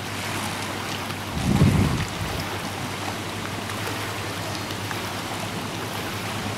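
Wind buffeting the microphone over choppy water washing against a boat ramp and floating dock, with a steady low hum underneath. A louder low rumble of wind comes about a second and a half in.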